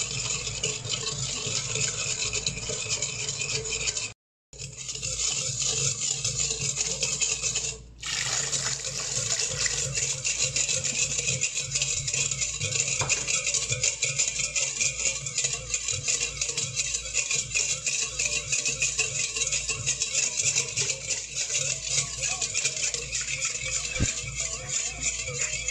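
Wire whisk beating liquid in a stainless steel mixing bowl: a fast, continuous scratchy swish and rattle of the wires against the metal. It is broken by a brief dead silence about four seconds in and a short dip about eight seconds in.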